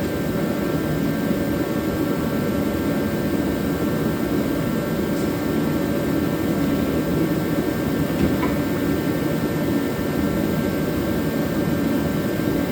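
Forced-air shop space heater running, a steady blowing hum with a faint whine in it, and a couple of light clicks.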